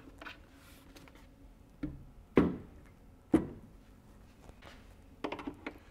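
Handling sounds from a plastic auxiliary fuel tank and its brass fittings being worked by hand: a few sharp knocks about a second apart, the loudest roughly two and a half seconds in, then a quick run of light clicks near the end.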